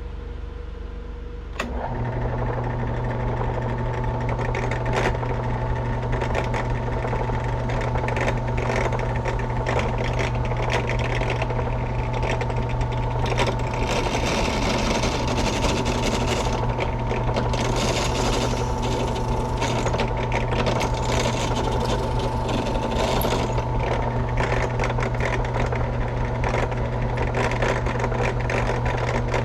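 Electric sanding machine running steadily after starting abruptly about two seconds in, with a steady motor hum. In stretches through the middle a hissing grind of abrasive on the workpiece comes and goes.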